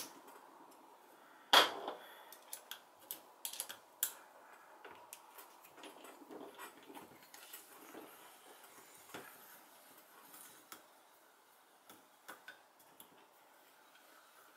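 Small scattered metallic clicks and taps of a hex key working the bolted receiver pins of a Remington 870 shotgun. The loudest click comes about a second and a half in, followed by a quick run of clicks, then sparser light ticks.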